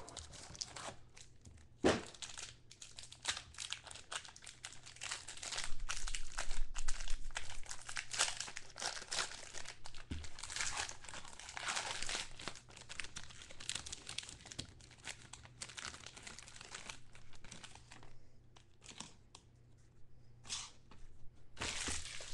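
A crinkly foil trading-card pack wrapper being torn open and crumpled by hand: a long run of crackling and tearing, busiest in the middle and thinning out near the end, with a single knock about two seconds in.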